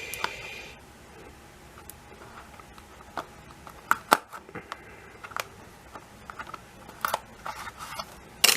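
A small sealed cardboard product box being handled and opened: scattered clicks, taps and light scraping, with a sharper knock near the end.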